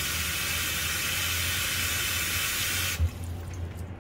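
Bathroom sink tap running steadily into a filling basin, a constant splashing hiss. About three seconds in it stops abruptly with a short thump as the tap is shut off.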